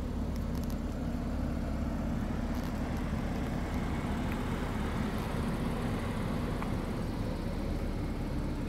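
Steady low mechanical hum at an even level, with a few faint light clicks.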